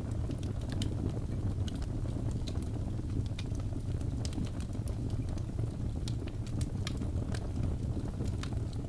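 Wood fire burning in a fireplace: a steady low rumble of flames with a few sharp crackles and pops each second.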